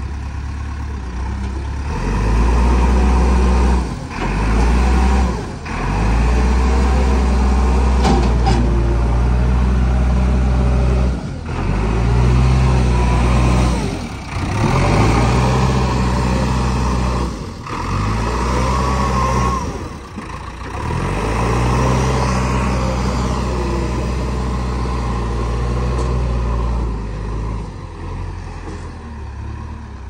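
JCB 3DX backhoe loader's diesel engine revving hard under heavy load as the stuck machine works itself out of soft mud. The engine runs in long high-revving pushes, broken by short dips about half a dozen times.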